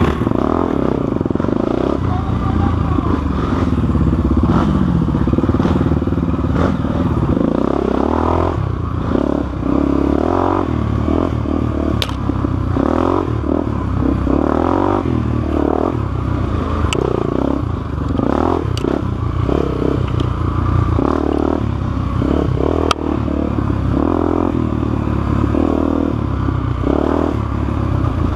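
Honda Tornado dirt bike's single-cylinder four-stroke engine, bored out to 293cc, revving up and down as it is ridden hard, with the bike clattering over rough ground. A few sharp clicks cut through, one about twelve seconds in and another near twenty-three seconds.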